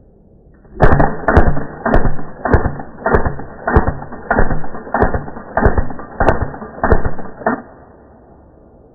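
A WE G18C gas blowback airsoft pistol firing a full-auto burst, heard slowed down: about a dozen sharp clacks of the gas shots and the cycling slide, evenly spaced about two a second, stopping near the end.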